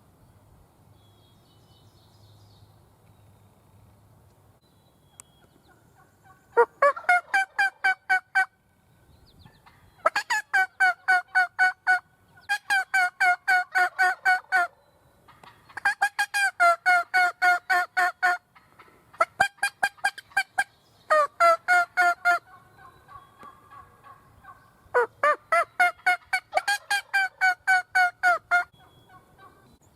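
Loud turkey calling in seven bursts of rapid, evenly spaced notes, each burst lasting one to two and a half seconds, with short pauses between.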